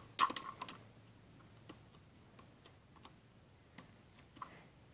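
Plastic Lego pieces clicking as the white ladder of a Lego 7208 fire truck is handled: a quick cluster of sharp clicks near the start, then a few single ticks.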